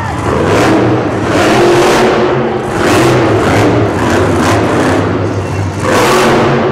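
Monster truck engine revving hard in repeated surges, about five swells of power over a few seconds.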